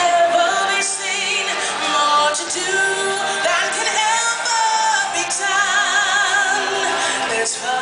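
Stage-show music with singing voices. About five seconds in, one voice holds a long note with strong vibrato.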